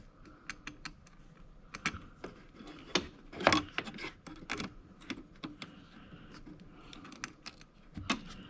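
Irregular sharp metal clicks and clinks from the car battery's terminal hardware and hand tools being handled, with a louder cluster about three and a half seconds in.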